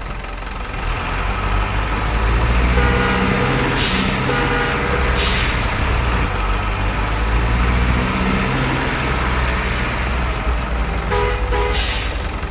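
Heavy diesel dump-truck engine sound, running steadily under load, as played for RC model dump trucks climbing a ramp with full loads. Several short horn toots sound around three to five seconds in and again near the end.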